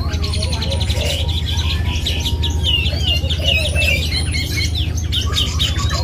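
Several caged songbirds singing at once: fast repeated high chirps and trills over lower chattering calls, with a steady low hum underneath.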